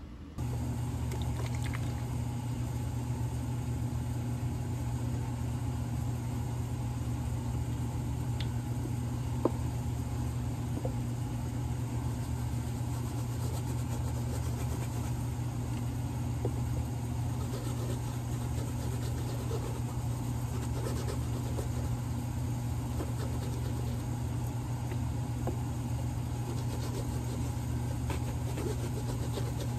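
Steady low hum of a workshop machine's electric motor running, starting just after the beginning, with one short sharp click about nine and a half seconds in.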